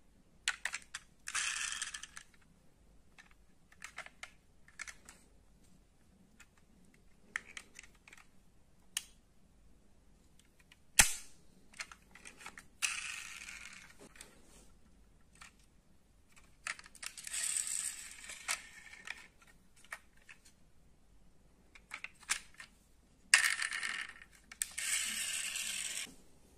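Die-cast metal model cars clinking and clattering as they are handled and set down among a pile of others: scattered light clicks, a sharp clack about eleven seconds in, and several clattering rustles of a second or two each.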